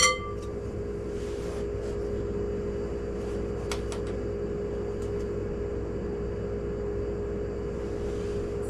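A metal spoon clinks once against a bowl with a brief ringing tone. After it comes a steady appliance hum, with a couple of faint taps.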